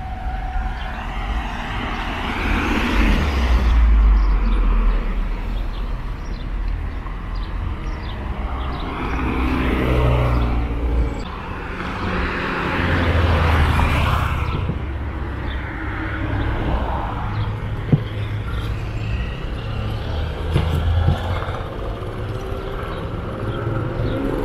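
Street traffic: several cars pass one after another, each engine rumble swelling and fading. A single sharp click sounds about two-thirds of the way through.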